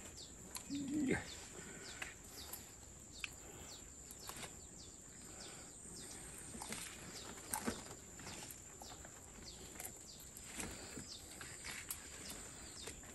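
Faint crackling and rustling of leaves and twigs as a caught fish is handled and unhooked in dense brush, with scattered small clicks, over a steady high insect drone.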